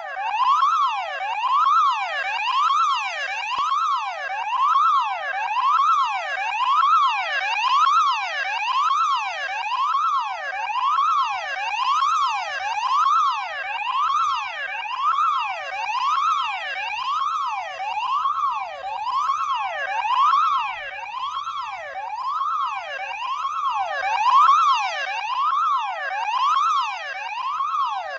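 Electronic emergency alarm sounding continuously: a loud tone sweeping up and down in a steady triangle, about three sweeps every two seconds, with no pause.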